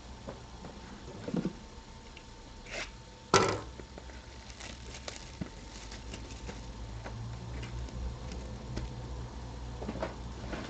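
Trading card boxes and packs being handled on a table: scattered light clicks and rustles, with one sharper knock about three seconds in, over a low steady hum.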